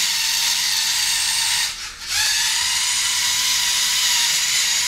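Lego Mindstorms NXT 2.0 car's electric servo motors and gear train whining as it drives. The whine stops briefly about two seconds in, then starts again with its pitch rising a little.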